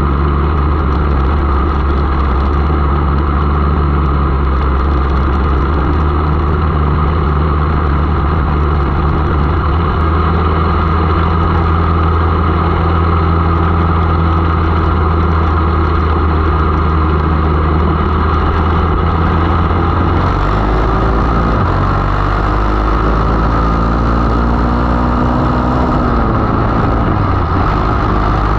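A 500 mini sprint car's engine, heard from on board, running at an even pace. About two-thirds of the way through its note changes, and rising glides in engine pitch follow as the revs climb.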